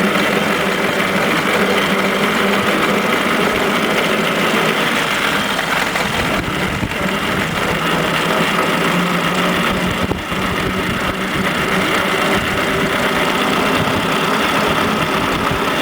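1926 Morris Cowley four-cylinder side-valve engine running steadily with a busy mechanical noise from the drivetrain. The noise is taken to be the rear axle's bevel gears, the crown wheel and pinion, and judged nothing untoward.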